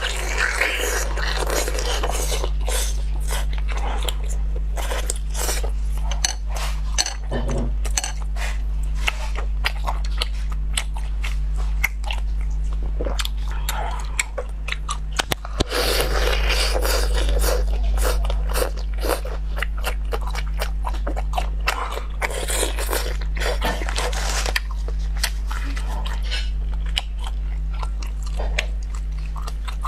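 Close-miked eating of squid tentacles: biting and chewing with many small mouth clicks, in heavier bursts near the start, about halfway and a little after two-thirds in. A steady low hum sits underneath.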